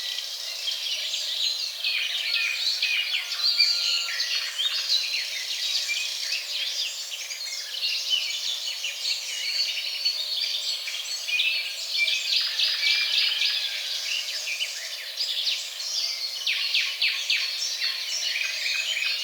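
Many birds chirping and singing at once, a dense chorus of overlapping short calls and trills.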